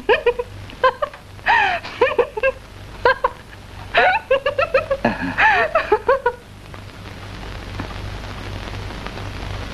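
A woman laughing in quick, high giggles for about six seconds, then a steady hiss of rain that slowly grows louder.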